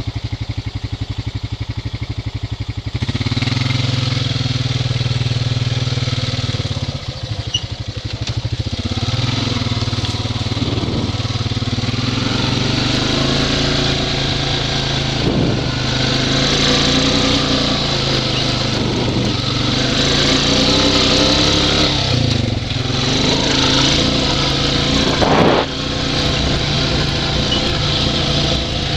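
Off-road vehicle engine idling with a fast even pulse, then revved up about three seconds in and run under changing throttle, its pitch rising and falling again and again.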